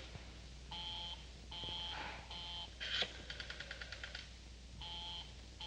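Five short pitched beeps, unevenly spaced, with a quick run of rapid clicks in the middle, about ten a second for roughly a second.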